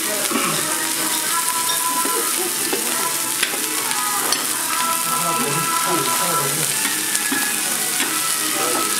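Corn kernels sizzling in oil on a hot flat-top teppan griddle, with a metal spatula stirring and scraping them and a couple of sharp clicks midway.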